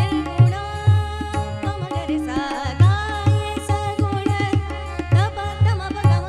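A woman singing a Marathi abhang, accompanied by harmonium and tabla. The tabla's deep bass strokes keep a steady rhythm under her voice and the harmonium's held notes.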